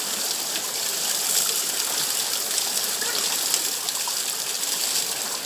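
Steady rush of a small waterfall pouring over a person's shoulders and splashing onto the rocks below.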